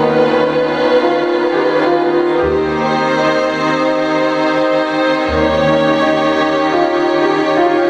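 Grand piano playing a continuous passage, with a held low note underneath that changes about every three seconds.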